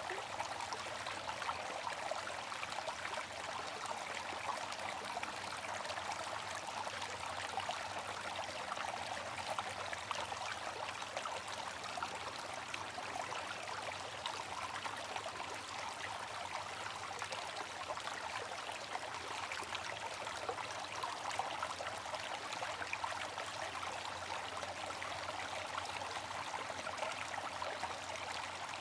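Water flowing in a steady, even rush, with no change or break.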